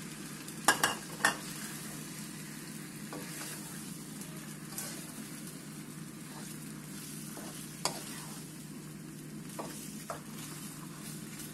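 A wooden spoon stirring cooked macaroni through a tomato and onion sauce in a nonstick frying pan, over a steady sizzle of the sauce frying. The spoon knocks sharply against the pan twice about a second in, and a few more times later.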